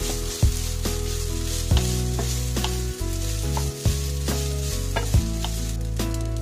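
Rice frying in oil in a pan, a steady sizzle, while a spatula stirs it with sharp knocks and scrapes against the pan every second or so. Background music plays under it.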